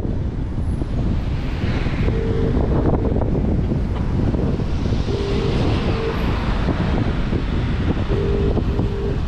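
Wind buffeting the microphone over a steady low rumble of slow-moving traffic. A short double beep repeats about every three seconds.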